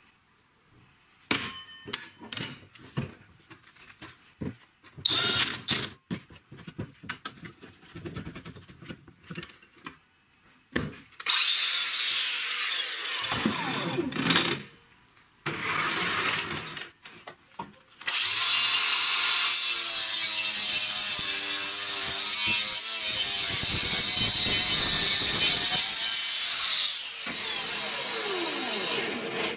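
Cordless angle grinder fitted with a home-made saw base plate: a series of clicks and knocks as metal parts are handled, then the grinder run up in short bursts, its pitch falling as the disc winds down. About 18 seconds in it cuts through a board in one long, loud stretch, then winds down near the end.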